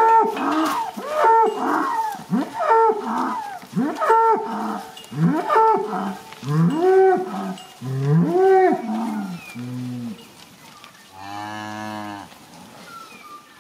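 Angus cows and calves mooing: a fast run of short rising-and-falling calls, several voices overlapping, for most of the time, then a few low calls and one long, deep moo about eleven seconds in.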